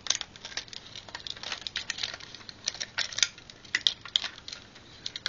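Quick, irregular clicks and rattles of a Binaltech Tracks metal-and-plastic transforming robot toy being handled, its leg parts being moved.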